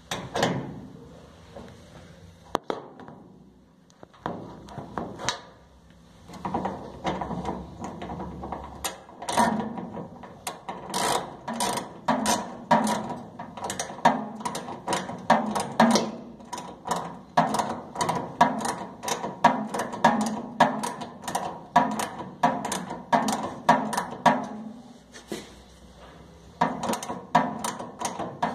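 Socket ratchet wrench clicking in long runs of quick clicks, a few per second, as it is worked back and forth on a gas dryer's burner fittings, with a short pause near the end.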